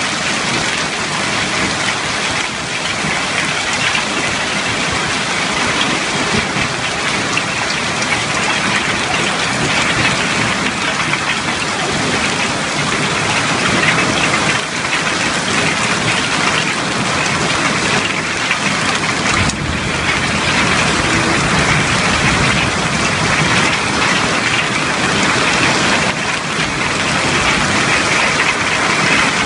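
Heavy hail and rain pelting down: a loud, steady hiss of countless small ice stones and drops striking surfaces.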